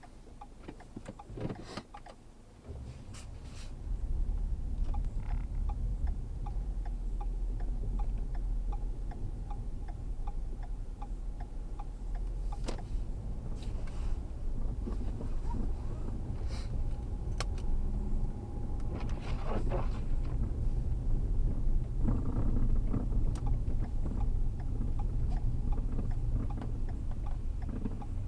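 Steady low rumble of a road vehicle, building up about four seconds in, with a few sharp clicks and knocks scattered through it.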